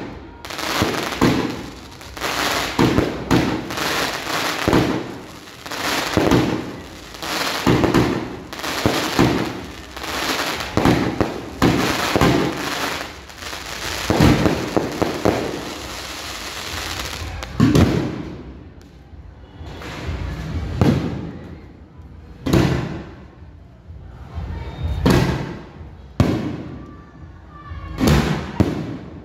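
Aerial fireworks launching and bursting: a dense, rapid string of bangs for most of the first two-thirds, then single bangs a second or two apart near the end.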